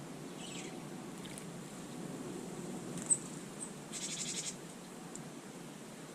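Small wild birds calling: a few faint high chirps, a sharp high chip about three seconds in, then a brief rapid string of high notes about a second later, over a steady low background hum.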